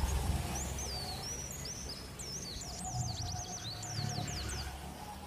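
A small bird twittering in quick, high, sweeping chirps over a low steady hum. A faint steady whine joins about two seconds in.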